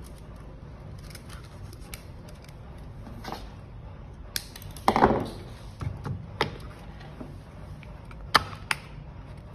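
Handling sounds from fitting a steel tie-wire reel into a cordless rebar tying gun: scattered sharp clicks and taps of plastic and metal, with a louder short scraping clatter about five seconds in.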